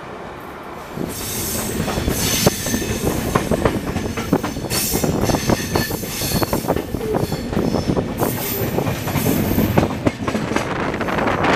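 Passenger coach wheels clattering over the points and crossings as the train clears a passing loop, heard from an open coach door, with many sharp clicks and thin high wheel squeal at times, the longest squeal about two-thirds of the way in. The sound grows louder about a second in.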